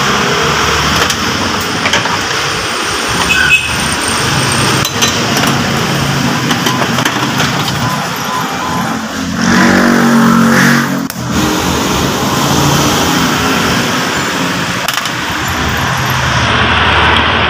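A motor vehicle engine running steadily, growing louder for a second or two about ten seconds in. A few light clicks of metal parts being handled are mixed in.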